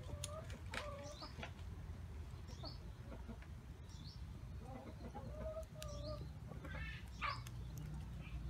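Chickens clucking in a series of short calls, with a few light clicks of metal tongs against the wire grill rack.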